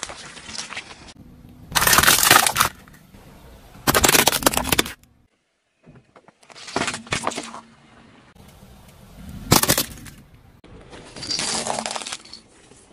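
Objects crunching and breaking as they are crushed under a car's tyres, in about five separate loud bursts of a second or less, with quieter stretches between.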